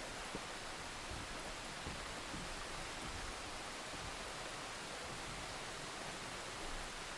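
Steady rain falling, an even dense hiss with no single drops or thunder standing out.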